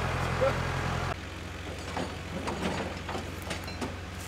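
A vehicle engine idling with a steady low hum. It cuts off abruptly about a second in, giving way to a quieter steady low hum with a few faint scattered clicks.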